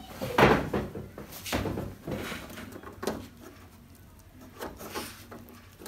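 Plastic front frame of a TCL LED TV being lifted off the set and handled: a series of plastic scrapes and knocks, the loudest about half a second in.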